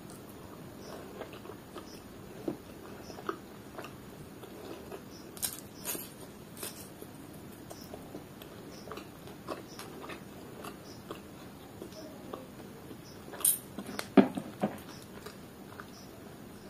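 Close-up mouth sounds of eating rice and chicken liver curry by hand: wet chewing, smacking and small clicks, with bites of raw onion. A few louder crunches or knocks come together near the end.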